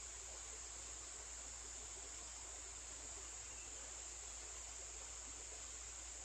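Steady high-pitched insect chorus, a constant buzzing trill, over a faint even hiss of flowing creek water.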